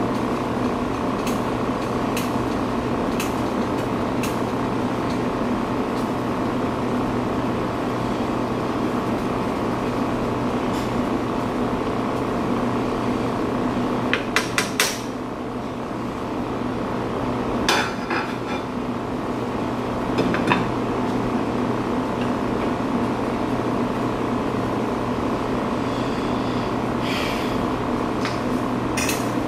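Metal spoon clinking against a saucepan of boiling chicken: a quick run of four taps about halfway through, then single knocks a few seconds apart. The pot lid clatters on near the end, all over a steady mechanical hum.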